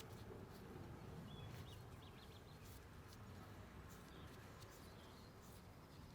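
Near silence: a faint steady low background rumble with a few faint high chirps and scattered light clicks.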